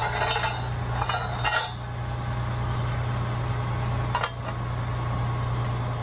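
Fire truck stabilizer leg lowering onto its steel ground pad: a few metallic clanks, two close together near the start and one about four seconds in, over a steady low engine hum.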